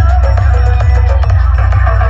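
Loud DJ dance music blasted through a sound-competition speaker-box system, with heavy pulsing bass and a short repeating melody.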